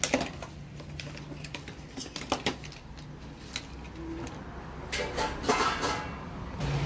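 Scattered small clicks and taps from handling stripped wires and plastic wire connectors on a wooden worktable, with a denser run of clicks about five seconds in as the parts are set down.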